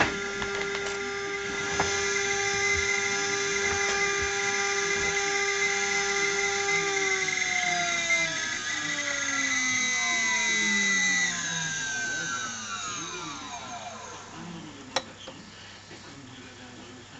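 An electric motor whines at a steady pitch, then spins down, its whine falling smoothly over several seconds until it fades out. There is a single sharp click near the end.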